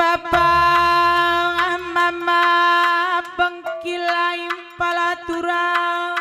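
Karo Batak gendang dance music: a loud, held melody line with ornamented pitch bends over a pulsing low beat and sharp percussion clicks. The low beat drops out about halfway.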